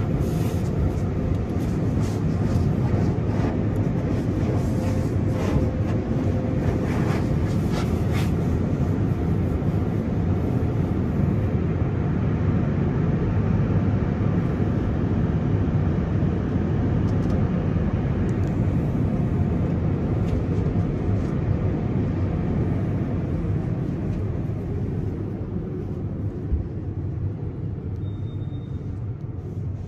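Tunnel car wash water spray pelting the car's windshield and body, heard from inside the car as a steady rumble and hiss with sharp splatters in the first several seconds. It eases a little near the end as foam soap covers the glass.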